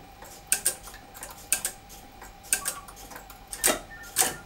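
Gents of Leicester Clock 36 pendulum master clock ticking: a sharp double click about once a second, with two louder clicks near the end.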